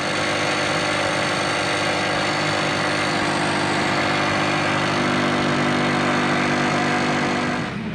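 Electric air pump running with a steady, even hum while the inflatable boat is pumped up. It cuts off near the end.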